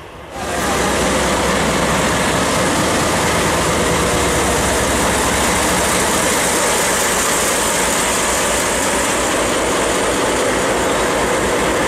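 JNR Class DE10 diesel-hydraulic locomotive's V12 diesel engine idling, heard close beside its engine hood and grille, a loud steady running with a low pulse underneath. It comes in abruptly about half a second in.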